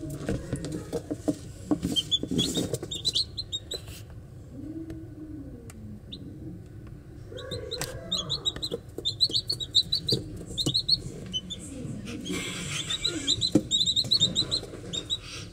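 Young domestic chicks peeping: quick runs of short, high cheeps in bursts about two seconds in, from about seven to eleven seconds, and again near the end, with scattered light taps in between.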